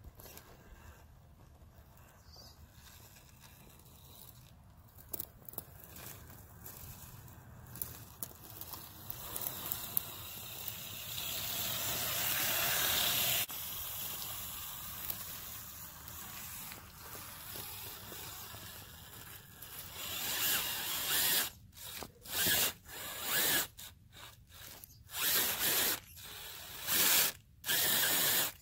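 RC crawler truck's motor and drivetrain whirring as it climbs over roots and sticks: a long steady run that builds up and cuts off about halfway, then a string of short throttle bursts, each under a second, near the end.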